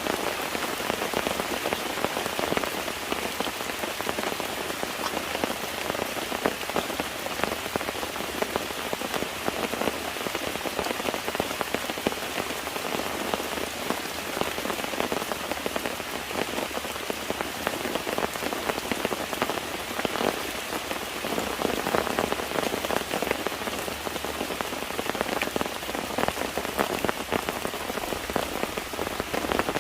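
Steady rain, a dense patter of drops hitting a surface.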